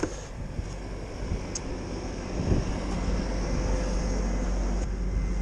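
Bobcat skid-steer engine idling steadily, with a single knock about halfway through.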